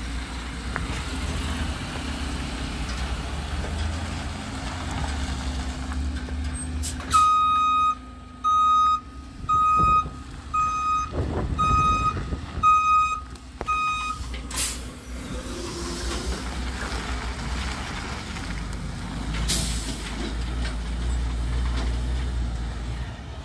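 Heavy hi-rail maintenance-of-way truck's diesel engine running steadily as it manoeuvres off the track. About a third of the way in its reverse alarm beeps some seven times, roughly once a second, and a few short sharp hisses of air brakes come through.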